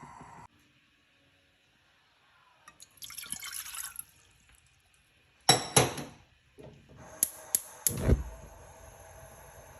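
Kitchen sounds: a short pour of liquid lasting about a second, then two loud clanks of kitchenware and three sharp clicks, after which a steady low hum sets in.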